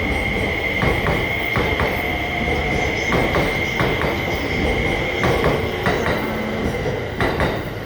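Passenger train rolling along a station platform, with a steady high wheel squeal and a scatter of sharp clicks from the wheels crossing rail joints and points.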